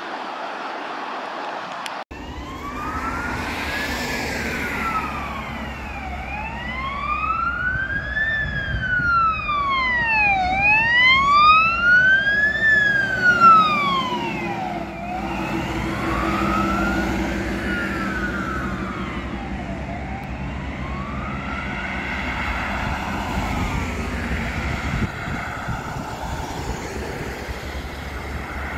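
Scania P360 fire engine passing on an emergency run with its siren on the wail tone: slow, even sweeps up and down in pitch, each lasting about four seconds, starting about two seconds in. The siren is loudest as the truck goes by, with its diesel engine and tyre noise beneath. The sweeps then sit slightly lower in pitch and fade as it moves away.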